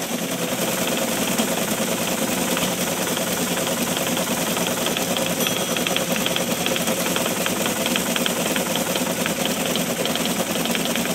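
Teletype ASR-33 printing and punching paper tape as it receives the Altair 4K BASIC file over serial: a steady, rapid mechanical clicking from the print mechanism and tape punch.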